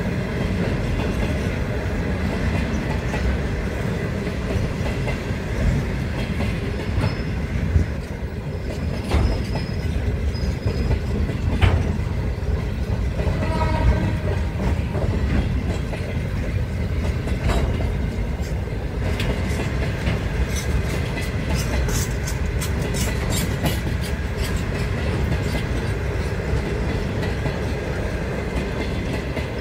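A train passing close by at speed, with a steady rumble of wheels on rail and clickety-clack over the rail joints. The wheels squeal briefly a few times around the middle, and a run of sharp clicks comes near the end.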